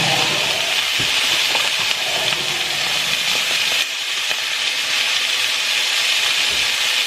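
Pork sizzling steadily in a hot frying pan, with the gravy mixture just poured in; a few light knocks are heard.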